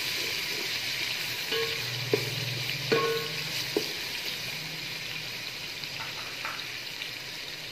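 Tomatoes and ginger-garlic paste sizzling steadily in hot oil as they are stirred, the spoon clinking against the pot a few times between about one and a half and four seconds in.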